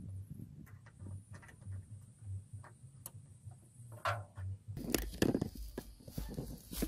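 Light metallic clicks and ticks of hand wrenches tightening the mirror's mounting nut on the truck's sheet-metal fender. From about two-thirds of the way in, low rumbling handling noise and a few louder knocks as the camera is picked up.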